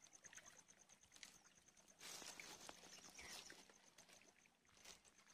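Near silence: faint lakeshore ambience, with a soft hiss from about two seconds in and a few light taps.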